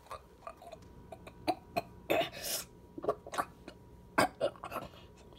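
Short coughing, throat-clearing noises with scattered clicks and knocks, the loudest knock about four seconds in, from a phone and plush toy being handled.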